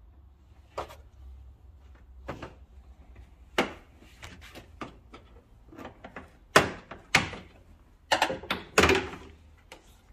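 Irregular clicks and knocks of a Nissan 370Z's trunk trim being handled: the rubber weatherstrip and plastic trim panel around the trunk opening pulled and pried loose. The sharpest knocks come in the second half.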